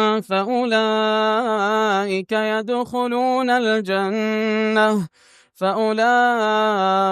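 A male reciter's voice chanting Quran recitation (tajweed) in maqam Nahawand, with long, melodically ornamented drawn-out notes and a short breath about five seconds in.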